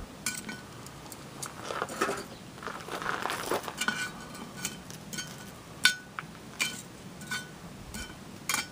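Metal tongs clinking against a Lodge cast iron Dutch oven lid as charcoal briquettes are set down and shuffled on it: a string of sharp clinks, the loudest about six seconds in, with a stretch of scraping around two to three seconds in.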